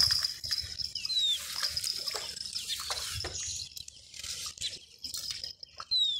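A hooked carp splashing at the water's surface beside the landing net as it is played in, a string of irregular splashes and drips.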